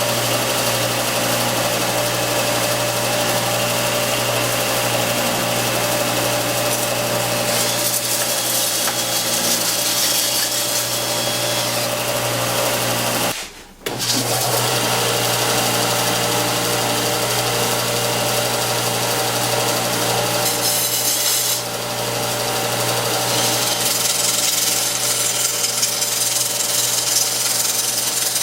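Belt sander running together with an electric drill that spins a wooden strip through a jig against the sanding belt, grinding it down into a dowel. A steady machine noise with a sanding hiss that comes and goes, and a brief drop-out about halfway through.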